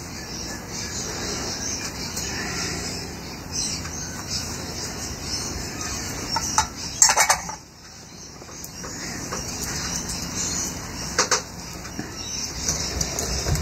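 Birds chirping steadily in the background, with a short burst of sharp clicks and rattles about seven seconds in and a couple more clicks near the end.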